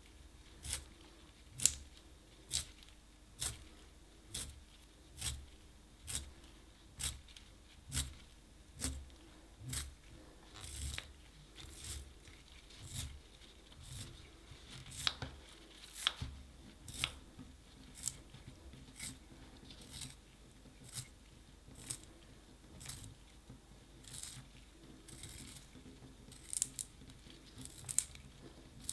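Wooden pencil being sharpened in a small handheld plastic sharpener: the blade shaves the wood in short scraping strokes, about one a second, as the pencil is turned.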